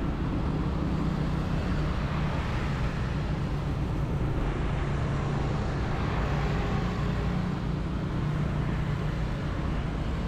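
Steady road-traffic noise on a city street, heard from a moving bicycle: vehicles running past with a continuous low rumble.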